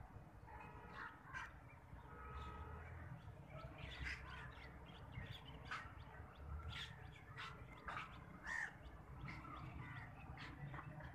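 Faint outdoor ambience of birds calling, short scattered calls now and then over a low steady rumble.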